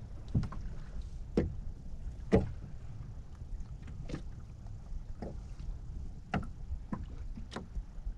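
Small waves lapping and slapping against the hull of a small boat, sharp irregular knocks roughly once a second over a steady low rumble of water and wind.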